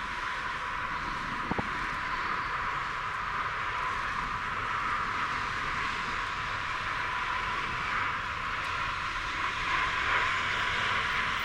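Jet airliner engines on final approach, a steady rushing roar that swells slightly near the end, with one brief click early on.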